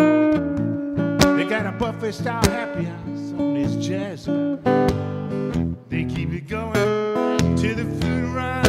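Solo acoustic guitar playing a blues instrumental passage, strummed chords mixed with picked notes.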